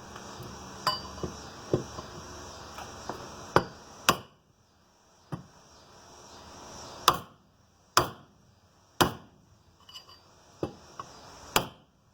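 Mini sledgehammer tapping a metal pipe to drive a steering stem bearing down onto the steering stem: about a dozen irregular metal-on-metal taps with a short ring, some light and a few much harder, spaced a second or so apart.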